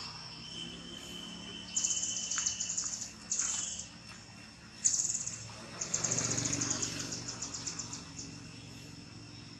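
Outdoor wildlife chirping: four bursts of high, rapid pulsing chirps, the last about two seconds long, over a faint steady high drone.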